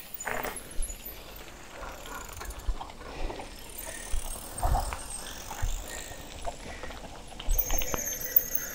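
Loaded bicycles rolling downhill, with irregular knocks and rattles as the tyres and the loaded bikes jolt over bumps and stones.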